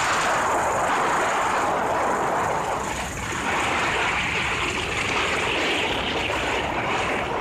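Steady rush of wind and road noise on a moving motorbike, buffeting the phone's microphone, with a slight dip about three seconds in.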